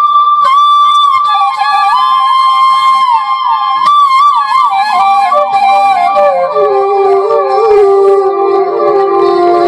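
Bansuri, a side-blown bamboo flute, playing a solo melodic phrase: a long held high note, then a line that steps downward with quick ornamented turns and settles on a low held note near the end.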